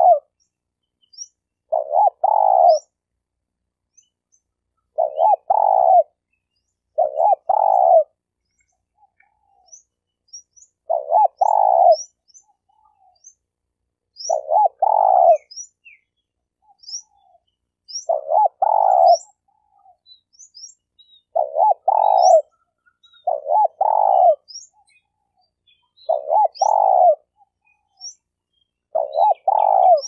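A spotted dove (tekukur) cooing in short, repeated phrases of a few coos each, one every two to three seconds. Faint, high, thin chirps from a small bird go on between and over the phrases.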